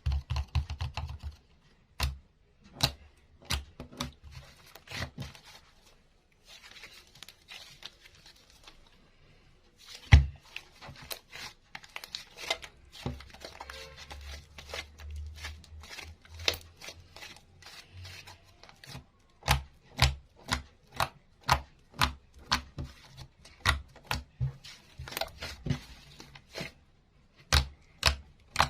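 Hands squeezing and poking soft soap-and-clay slime, making sharp wet pops and crackles. A stretch of softer crackling comes a few seconds in, and a loud snap about ten seconds in. Near the end the pops come steadily, about two a second.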